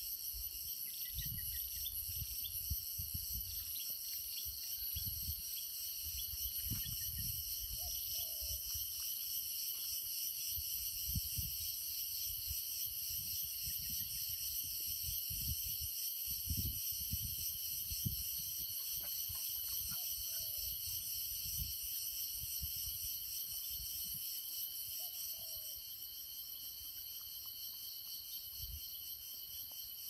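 Steady, high-pitched chorus of crickets, many insects calling at several pitches at once without a break. An uneven low rumble comes and goes underneath.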